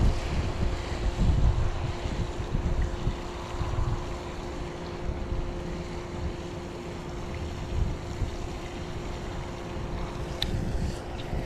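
Wind buffeting the microphone in gusts, strongest in the first couple of seconds, over a faint steady hum. Near the end come a few light clicks as the baitcasting reel is handled.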